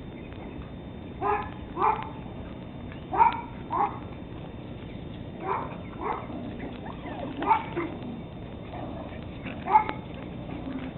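Teddy Roosevelt Terrier puppies, 13 weeks old, giving short high play barks. The yaps mostly come in pairs about half a second apart and recur every couple of seconds.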